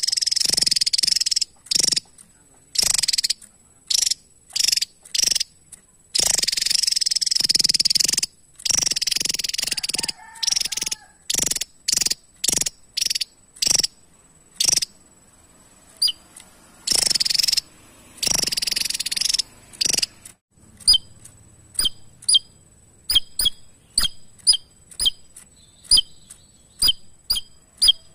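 Javan tesia singing: bursts of rapid, high, jumbled song lasting a second or two, broken up by short sharp chips. From about twenty seconds in, only single sharp chip notes, roughly two a second.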